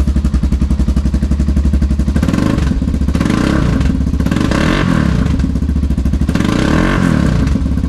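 Thunder MiG 25 motorcycle's 250 cc engine idling, then revved several times, rising in pitch with each blip and dropping back. Quite loud.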